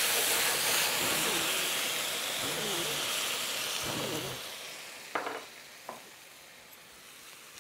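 White wine hitting a hot pan of fried green asparagus: a loud hissing sizzle as the wine boils off in a burst of steam, deglazing the pan, dying away gradually over about four seconds.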